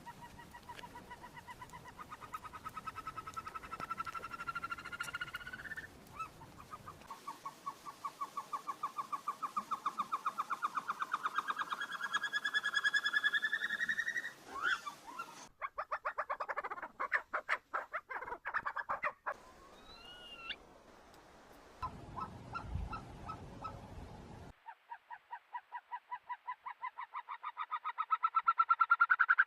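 Himalayan snowcock calling: long runs of rapid pulsed notes that climb steadily in pitch and grow louder, repeated several times. In the middle there is a stretch of faster clicking notes and a few short whistles.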